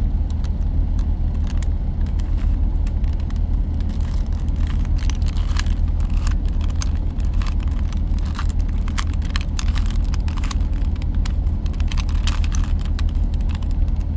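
Rubik's Cube being twisted by hand: a run of quick plastic clicks as the layers turn, over a steady low rumble.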